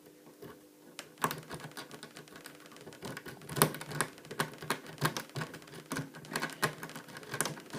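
Homemade Bogota–city hybrid lock-picking rake being worked in and out of a Squire padlock's keyway under a tension wrench: rapid, irregular small metallic clicks and scrapes as it rattles over the pins, starting about a second in.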